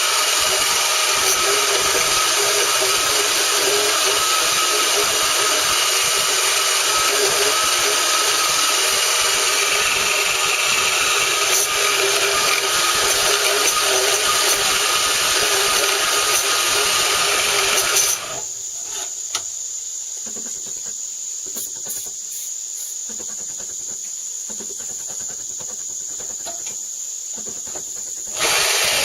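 Chicago Electric 10-amp variable-speed portable band saw cutting through metal, running loud and steady. About eighteen seconds in the sound drops suddenly to a quieter hiss, and the full cutting noise returns just before the end.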